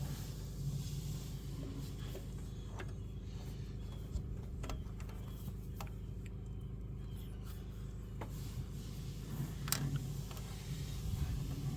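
Scattered sharp clicks and taps of hand tools and a spring hose clamp being worked onto a radiator hose, over a steady low hum.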